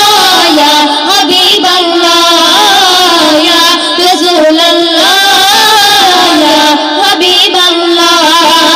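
Female voices singing a Bengali Islamic gazal into stage microphones, with long, wavering held notes.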